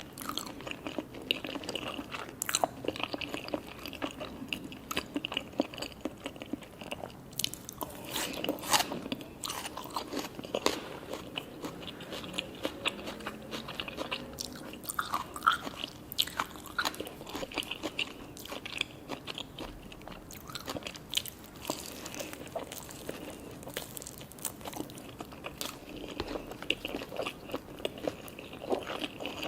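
A person eating sushi hand-roll cones at close range: repeated crunchy bites and wet chewing, with many small crackles.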